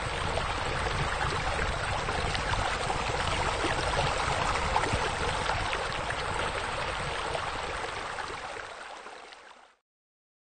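Steady running-water ambience, like a flowing stream or fountain, fading out near the end and stopping about half a second before the end.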